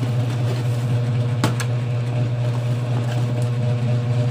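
Steady low electric hum of a running ceiling fan motor, with one sharp click about a second and a half in as the cardboard shoebox is turned in the hands.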